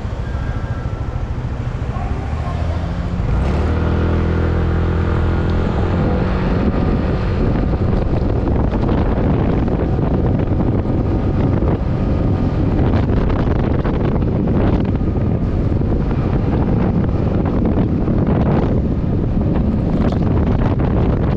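Yamaha NMAX scooter's single-cylinder engine running low, then pulling away about three seconds in, when it gets suddenly louder. As the scooter rides on, wind noise buffets the microphone.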